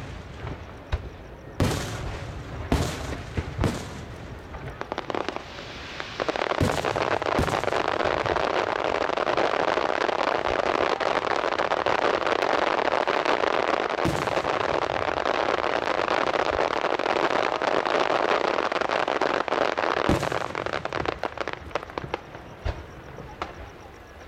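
Aerial fireworks: a few single shell bangs in the first few seconds, then from about six seconds in a dense, unbroken crackle from a wide spray of glittering stars lasting around fourteen seconds, with an occasional louder bang. The crackle dies away near the end.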